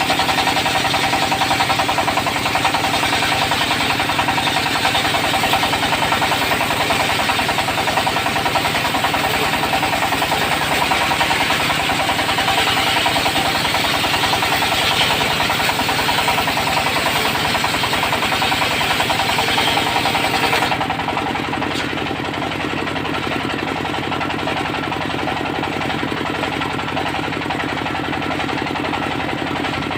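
Diesel-engined circular sawmill running, its blade cutting through teak with a steady hiss over the engine's knock. About two-thirds of the way in, the cutting noise stops and the engine and blade run on more quietly, unloaded.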